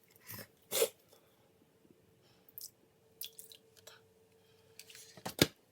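Freshly mixed glue-and-borax slime squishing and clicking as it is kneaded and handled, in a string of short, irregular squelches; the loudest comes near the end.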